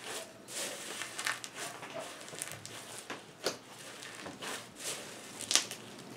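Hands kneading a large mass of slime into a deep bed of styrofoam beads, making floam: irregular crunching and crackling as the beads are squeezed and worked into the slime, with the loudest crackle near the end.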